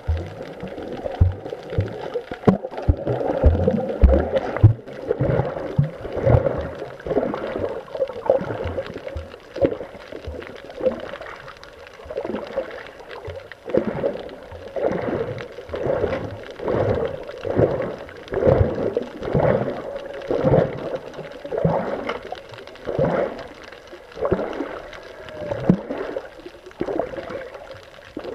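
Water sloshing and gurgling around a snorkeler's camera as he swims, with a rhythmic swish about once a second from the strokes and kicks. A faint steady hum runs underneath.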